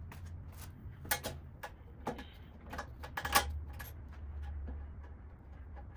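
Irregular small metal clicks and clinks of bolts, washers and nuts being handled and started by hand on caster mounts of a steel tool cart, the loudest clink a little past halfway, over a faint low hum.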